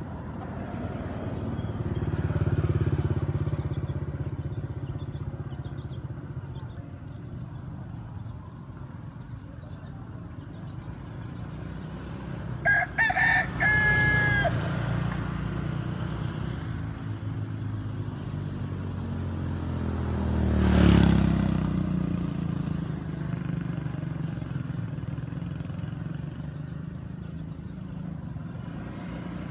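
A rooster crows once, about halfway through, over a steady low rumble of road traffic. A vehicle passes close by about two-thirds of the way in, the loudest moment.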